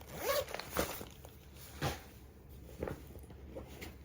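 Items being handled and moved about in a handbag: a few soft knocks about a second apart over light rustling, with a brief voice-like sound just after the start.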